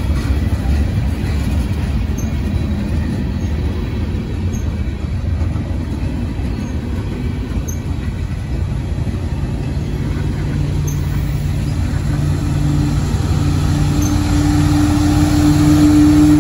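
Freight cars rolling past on the rails with a steady low rumble, then the hum of a mid-train CSX diesel locomotive that grows louder over the last several seconds as it draws alongside.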